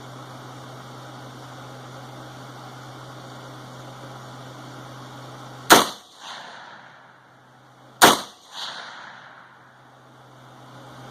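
Two suppressed rifle shots from a 20-inch DPMS AR-15-pattern rifle in 6.8 SPC II fitted with a home-built Form 1 suppressor, about two and a half seconds apart. Each sharp crack is followed about half a second later by a fainter second sound.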